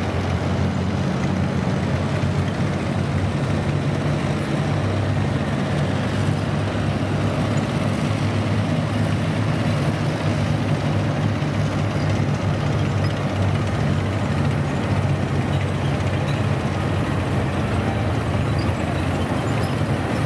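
Column of tracked armoured vehicles passing: BMP-2 infantry fighting vehicles, then 2S19 Msta-S self-propelled howitzers. Their diesel engines make a steady, deep drone over the rumble of the tracks on the pavement.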